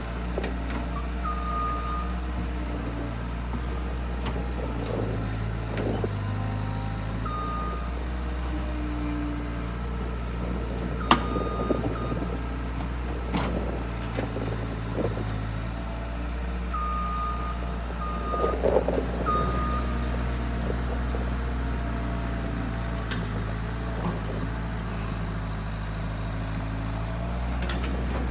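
Skid loader engine running steadily while the machine works, its reversing alarm giving short high beeps several times, with a cluster of beeps near the end. A few sharp knocks and clatters come through, the loudest about eleven seconds in.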